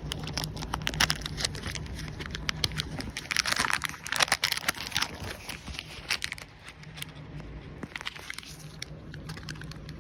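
Small plastic bags crinkling and crackling as finished pop sockets are handled and slipped into them, with a denser rustle about three to five seconds in.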